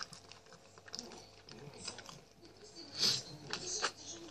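Close-up mouth sounds of a man eating grilled chicken: soft wet chewing with small clicks and lip smacks, and one louder wet smack about three seconds in.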